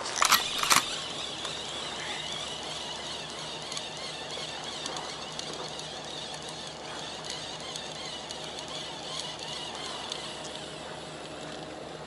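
Two short knocks in quick succession right at the start, then steady outdoor noise of wind and water with a faint low hum, as heard on a small fishing boat.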